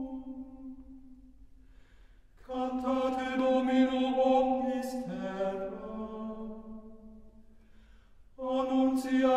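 Background music of slow sung chant: long held vocal notes in phrases that swell and die away, with a lower second voice joining in harmony about halfway through and a new phrase starting near the end.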